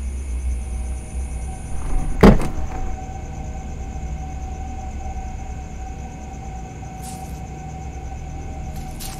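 A car's engine rumbling as it pulls up, dying down within the first second or so. A single sharp knock about two seconds in is the loudest sound. After it comes a steady humming tone, with a few faint clicks near the end as the car door is opened.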